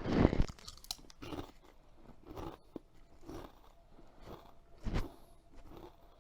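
A person bites into a thick, kettle-style Keogh's cheese and onion potato crisp with a loud crunch, then chews it, crunching again about once a second.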